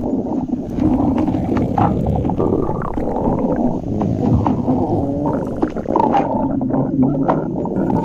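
Stomach growling: a continuous, loud gurgling rumble whose low pitch keeps wavering and shifting, dotted with small pops.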